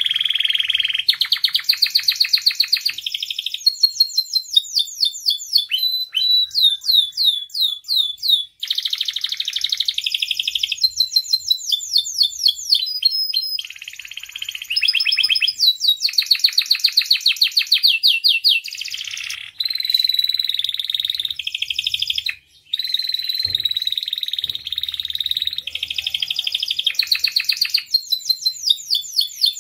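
Domestic canary singing a long, continuous song of fast trills and rolls, switching to a new phrase every second or two, with a few brief breaks.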